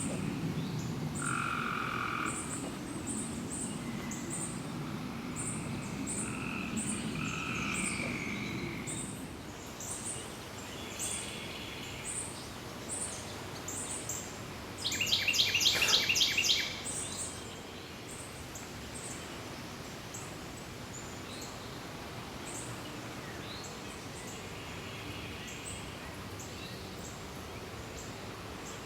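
Wild birds singing and calling, with short high chirps repeating throughout and a loud, rapid chattering call about halfway through. A low murmur, possibly frogs, sits under the first third.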